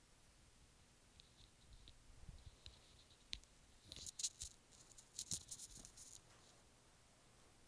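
Faint clicks and rustling crackles of a comb being worked through a wig's hair, in short irregular bursts, busiest about four to six seconds in.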